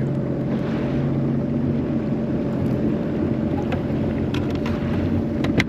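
Jet ski engine running steadily, with an even hum and low rumble, and a sharp click just before the end.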